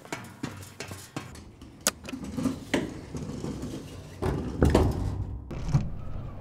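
Elevator car starting up: scattered clicks and knocks over a steady low hum, with heavier clunks about four to five seconds in.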